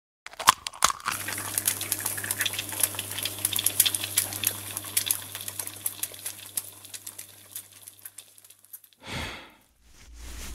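Food sizzling and crackling in a frying pan, with a dense run of small pops over a steady hiss and a low steady hum underneath. The sizzle fades out about eight to nine seconds in, followed by a brief soft noise.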